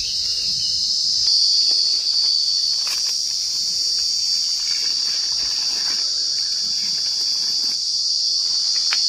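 Insect chorus, a steady high-pitched shrill.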